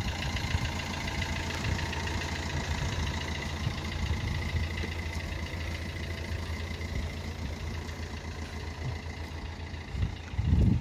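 Opel Corsa's petrol or diesel engine idling steadily, with a louder low rumble near the end.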